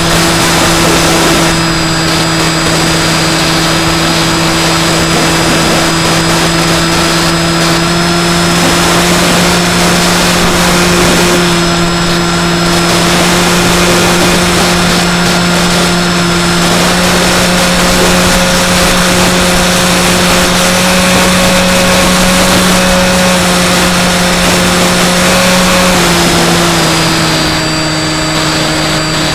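Skywalker X5 flying wing's electric motor and propeller droning steadily in flight, heard from a camera on board, over a rush of air. The pitch rises slightly about eight seconds in and drops a little near the end as the throttle changes.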